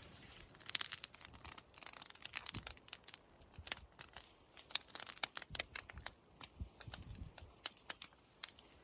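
Burning straw and leaves crackling, with a dense, irregular run of sharp snaps and pops and a few dull low thuds in the second half.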